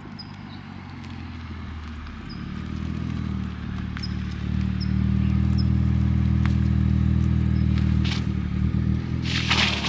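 A 2021 Toyota Supra A91's B58 turbocharged inline-six with an aftermarket titanium exhaust, rolling slowly at low revs. Its low, steady exhaust drone grows louder as the car approaches, then holds steady while it creeps in to park.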